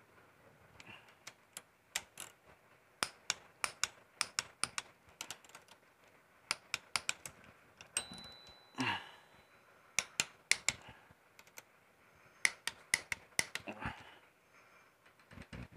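Ratchet wrench clicking in short, irregular runs of sharp, light clicks while bolts on the timing gears are tightened.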